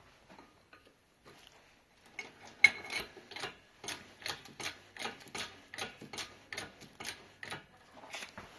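Hydraulic shop press being pumped by hand, making evenly spaced metallic clicks about three a second as it is brought up to press the 5th gear onto the transmission shaft.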